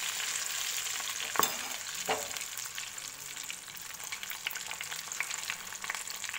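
Breadcrumbed stuffed chillies deep-frying in hot oil: a steady sizzle full of small crackles. Two light knocks come about one and a half and two seconds in.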